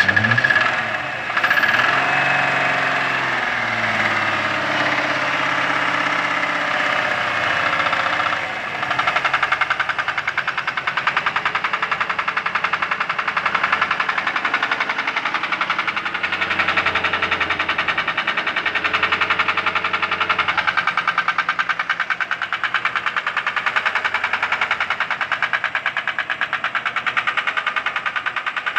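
Mercedes-Benz W140's M119 4.2-litre V8 running with a fast, even knock that keeps time with the engine. The engine's pitch rises and falls once in the first few seconds.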